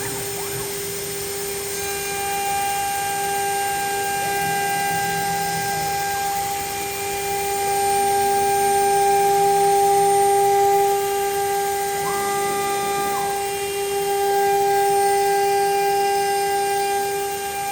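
DIY CNC router running: a steady high whine from the 3.5 kW spindle, with the NEMA34 closed-loop stepper motors adding shorter whines that rise in pitch, hold and fall back as the axes move, twice.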